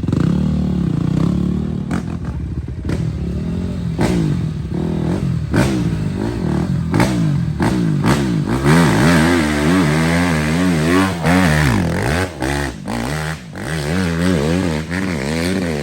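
Dirt bike engine running and being revved, its pitch climbing and dropping over and over as the throttle is worked, fastest in the second half, with occasional knocks.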